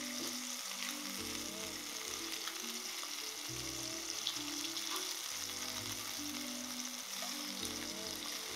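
Lionfish fillets sizzling steadily in coconut oil in a frying pan as they sear on both sides, with soft background music underneath.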